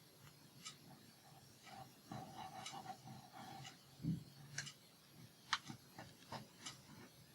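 Paper and a handmade journal being handled as a page is fitted into the book: faint scattered clicks and taps, a short rustle, and a soft thump about four seconds in.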